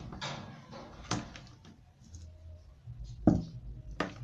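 Handling noise from small metal F connectors and tools: a rustle, then a few sharp clicks and taps, the loudest about three seconds in.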